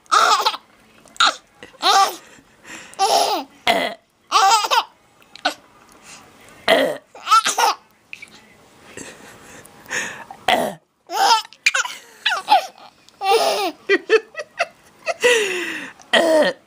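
Four-month-old baby making a string of short, throaty burping sounds mixed with laughter, roughly one burst every second.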